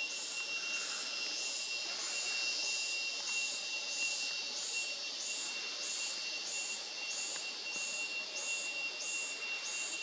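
Forest ambience of insects: a steady high-pitched whine, with a sharp high chirp repeating evenly about one and a half times a second.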